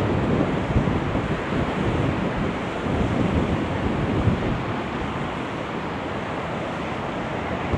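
Storm-force wind blowing hard across the microphone: a steady rush of noise with gusty buffeting low down, possibly mixed with the sea's surf.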